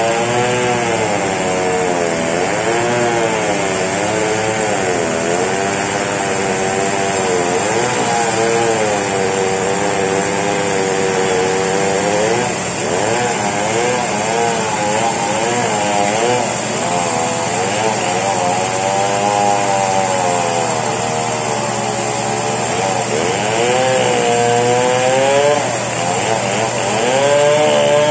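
Two-stroke chainsaw running under load as it splits a very large merbau log, its engine pitch rising and falling every second or two as the cut bogs the chain and lets it free again.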